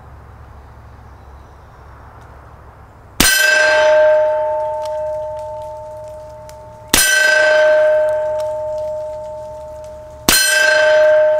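Three slow, single shots from a Hi-Point C9 9mm pistol, about three and a half seconds apart. Each bullet hits a steel plate target, which rings out with a long, bell-like tone that slowly fades.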